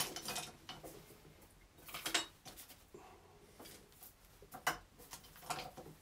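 Scattered light clinks and knocks of small hard objects being handled, the loudest about two seconds in.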